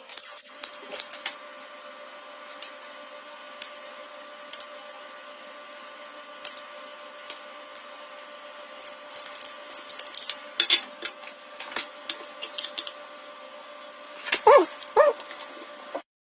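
Scattered light clicks and taps, like kitchen utensils on dishes, over a steady hum, with a busier run of clicks a little past halfway. Near the end come two short pitched cries that bend in pitch, like a dog's yelps.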